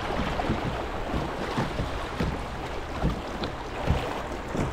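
Fast river rapids rushing and splashing around a moving kayak, with irregular low thumps.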